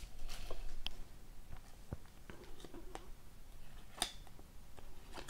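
Hockey trading cards handled and slid against one another: faint scattered clicks and soft rustling, with one sharper tick about four seconds in.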